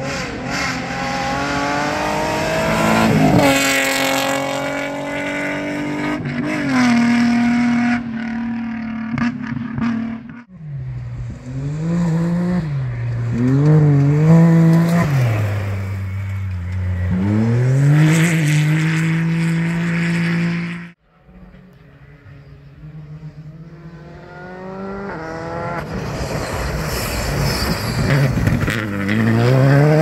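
Competition cars and an off-road side-by-side buggy driven hard one after another, their engines revving up and down in pitch through gear changes. The sound cuts off abruptly twice between vehicles, and the last car's engine grows louder as it approaches.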